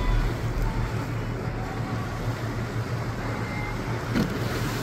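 Tour boat under way: a steady low engine hum under wind on the microphone and the rush of sea water. A brief knock near the end.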